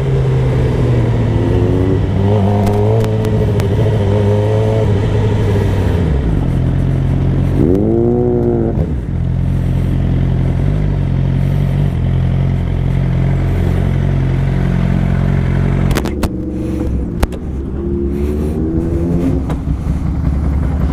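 Motorcycle engine running under way, with wind rushing over the helmet camera's microphone. The engine note shifts about six seconds in, rises and falls quickly near eight seconds, and changes again around sixteen seconds.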